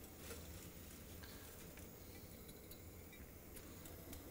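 Near silence: room tone with a faint low hum and a few light clicks.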